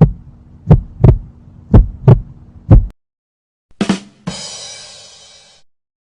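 Heartbeat sound effect: paired low thumps (lub-dub) about once a second, stopping about three seconds in. After a short gap comes a brief hit, then a noisy sound that fades out over about a second.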